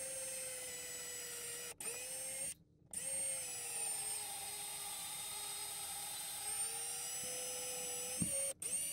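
Cordless drill driving a long thin bit down through a wooden roof beam and the ceiling below: a steady high motor whine that stops briefly twice in the first three seconds, dips in pitch for a couple of seconds in the middle, then comes back up before a short stop near the end.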